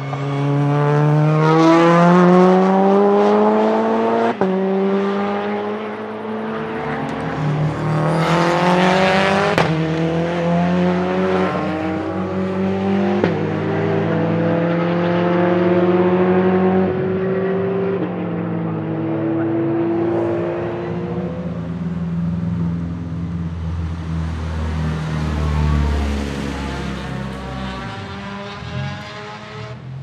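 Race car engines at full throttle on track, starting with a time-attack Mitsubishi Lancer Evolution. Engine pitch climbs and drops back at each upshift, about every four seconds, four times. Then another car's engine runs on more steadily and fades away near the end.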